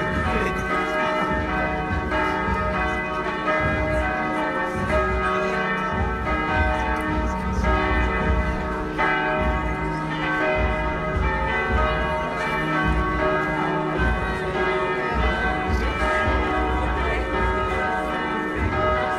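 A marching band playing a tune in held chords that change every second or two, with low notes sounding underneath.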